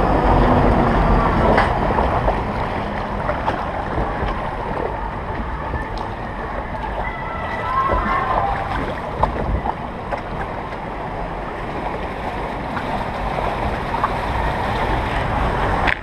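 Steady rush of water in a MACK Rides log flume's trough as the log boat floats along it.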